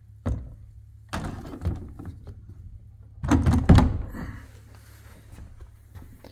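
YakAttack scupper cart's legs knocking and sliding into the scupper holes of a Bonafide SKF 117 kayak's hull. A single sharp knock comes first, a clatter follows about a second in, and the loudest clunks come around three to four seconds in as the cart seats against the hull, fading to light rattles.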